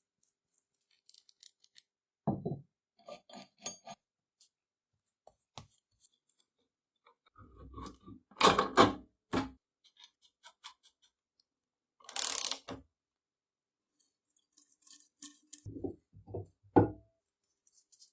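Scattered metallic knocks, clinks and scrapes of workshop handling of the restored leg vise's steel parts, with a few louder strikes and a short rush of noise about twelve seconds in.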